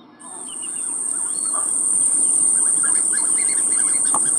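An insect's high-pitched, continuous buzz starts just after the beginning, swells over about two seconds and then holds steady as the loudest sound. Birds chirp faintly underneath.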